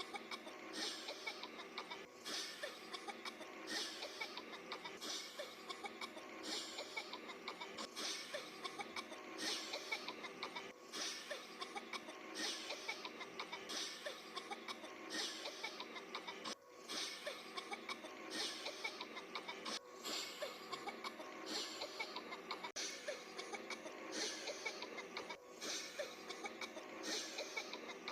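Repeated coughing, one short cough about every second and a half, going on and on at an even pace.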